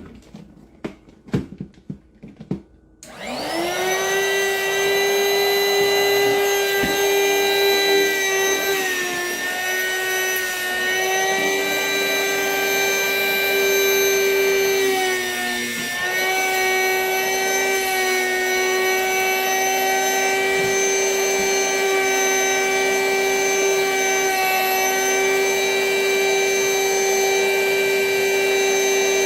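A few handling clicks, then about three seconds in a vacuum cleaner switches on and runs with a steady whine, sucking the air out of a storage bag of plushies. Its pitch sags briefly twice as the suction load changes.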